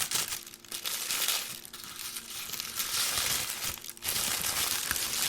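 Paper packaging crinkling and rustling in several handling bursts as a small item is unwrapped from its box.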